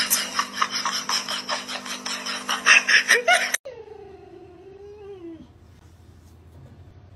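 Water spraying from a hose and splashing into a trough, a loud hiss with crackling splashes over a steady hum, cut off suddenly about three and a half seconds in. Then a bulldog gives one long whine that wavers and falls in pitch.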